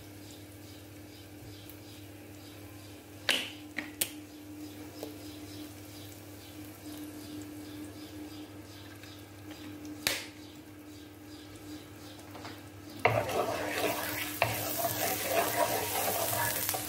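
Minced garlic in hot oil in a non-stick frying pan: after a low hum broken by a few sharp clicks, the garlic starts sizzling loudly about three-quarters of the way in while being stirred with a wooden spoon, the oil hot enough that the garlic is about to burn.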